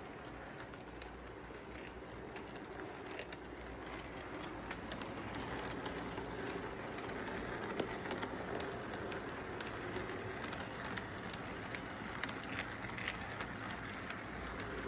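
Model electric train running on its track: a steady rumble of motor and wheels with many small rapid clicks from the wheels on the rails. It gets a little louder a few seconds in as the cars roll past close by.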